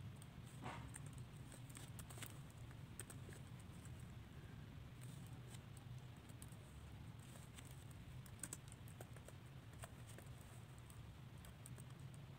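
Faint typing on a computer keyboard: irregular keystroke clicks over a low steady hum.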